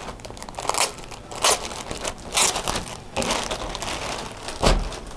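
Rustling and crinkling of a garment and its packaging being handled and unfolded, in a series of separate bursts about a second apart, with a low thump near the end.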